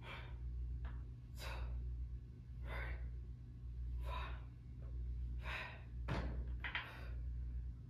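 A person breathing hard, with a loud breath about every second and a half, over a steady low hum.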